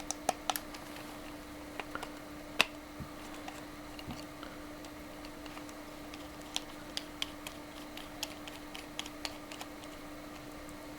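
Small, scattered clicks and ticks of a Torx screwdriver and handled cell phone parts as a screw is backed out of the phone's circuit board, with one louder click about two and a half seconds in and a run of clicks later on. A faint steady hum sits underneath.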